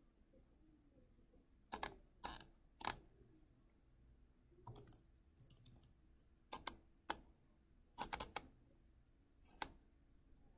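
Computer keyboard keys being pressed: about a dozen separate keystrokes in uneven clusters, some in quick pairs, with quiet gaps between.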